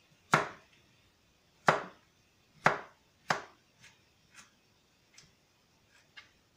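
Kitchen knife chopping carrot on a cutting board: about eight single, unevenly spaced strokes. The first four are the loudest, then lighter ones follow.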